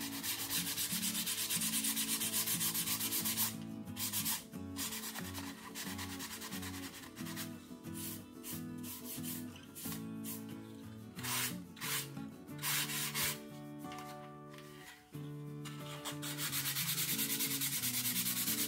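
220-grit sandpaper rubbed by hand over dried filler on model rocket fins and the fillets where they meet the body tube, in quick back-and-forth strokes of about five a second. The strokes break off briefly a few seconds in, turn short and uneven through the middle, then run fast and even again near the end.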